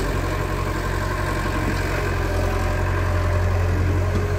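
Diesel engines of a CAT E70B crawler excavator and a tractor-trailer running at a steady idle: an even, low drone with no revving.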